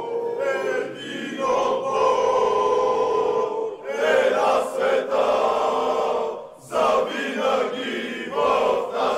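A crowd of football fans, mostly men, singing a chant in unison. The singing breaks briefly between phrases about two, four and six and a half seconds in.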